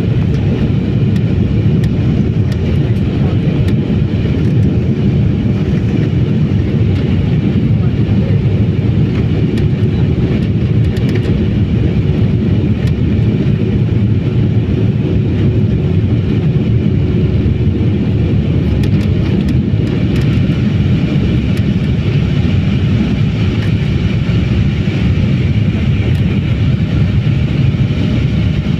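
Cabin noise of an Embraer E195-E2 on its takeoff roll: the Pratt & Whitney PW1900G geared turbofans at takeoff thrust, a steady loud low rumble with a faint high whine on top, with the jet lifting off near the end.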